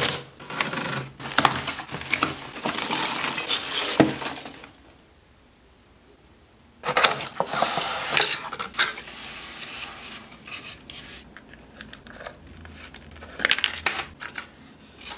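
A box cutter slitting packing tape and plastic wrap on a parcel, with scraping, tearing and crinkling. After a short quiet gap, cardboard packaging rustles as it is opened and handled, and a few light clicks come near the end.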